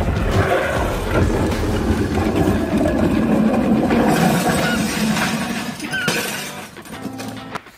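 A homemade cardboard sled scraping and grinding along a paved driveway, with breaking and clattering noises; the sound thins out near the end.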